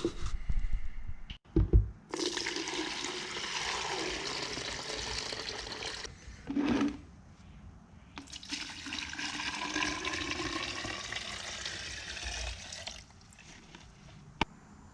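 Liquid fuel (methanol) being poured into a container to mix two-stroke fuel: two pours, one starting about two seconds in and another about eight seconds in, with a short knock near the end.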